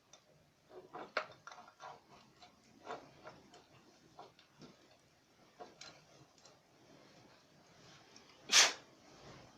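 Scattered light clicks and knocks, irregular and mostly in the first half, of tools and parts being handled during a tiller repair, with one louder, brief sound near the end.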